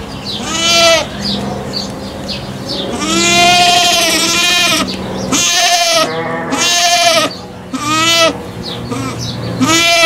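A goat or sheep-type farm animal bleating about six times, with short calls around the long, wavering one about three seconds in.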